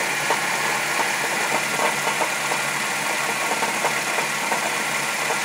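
1995 Saturn SL2's 1.9-litre four-cylinder engine running at idle with a crunchy rumble and scattered irregular ticks and knocks. The noise comes from the bottom of the engine, which the owner found needs rebuilding.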